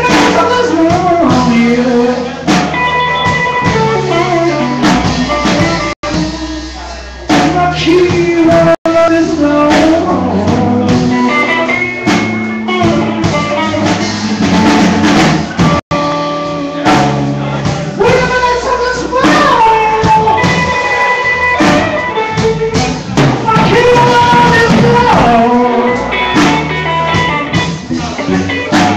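Live band playing amplified guitars over a drum kit, recorded loud on a phone. The audio cuts out for an instant three times.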